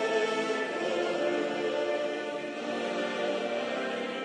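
Choral music: a choir singing sustained, held chords, with no firework bangs heard.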